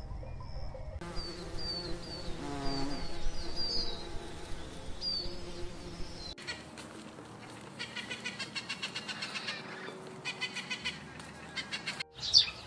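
Nature sound bed of small birds chirping in short repeated calls, then a fast pulsing trill of about five beats a second. The ambience cuts off abruptly about six seconds in and again near the end.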